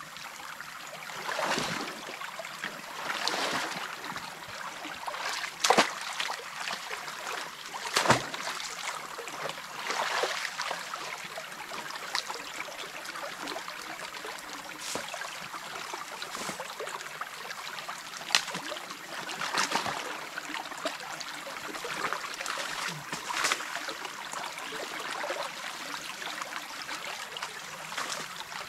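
Creek water running and trickling through a beaver dam that is being cleared, with irregular splashes and knocks every second or two, the loudest about six and eight seconds in.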